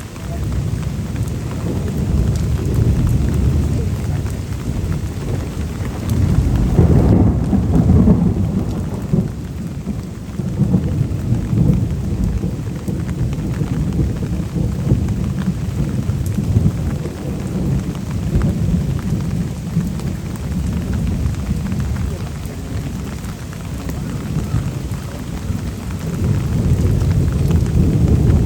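Thunder rumbling in a long, continuous low roll that swells about seven seconds in and then eases.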